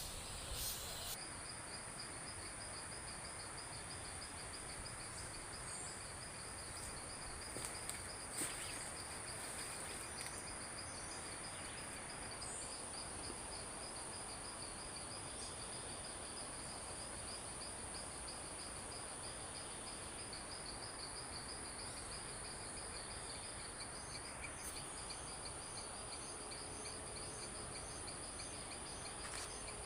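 Insects, crickets among them, chirping steadily: a continuous high buzz and a fast pulsed trill over a hiss of outdoor background. A few faint knocks come about eight seconds in, and further pulsed calls join near the end.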